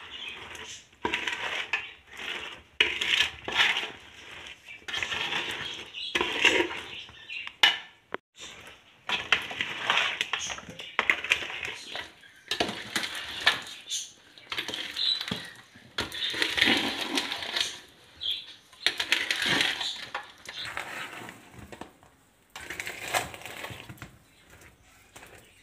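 A spoon scraping and clattering against a metal pot as fried banana chips are stirred and tossed through thick jaggery syrup, in irregular bursts with short pauses; this is the stage where the chips are coated in the syrup.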